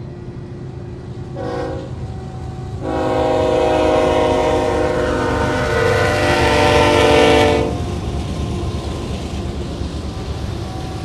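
Diesel freight locomotive's air horn sounding a chord: one short blast, then a long blast of about five seconds, over the steady low rumble of the train.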